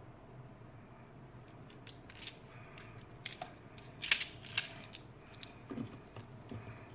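Candy packaging being handled: a run of sharp plastic crackles and clicks starting about two seconds in, the loudest two coming a little past the middle.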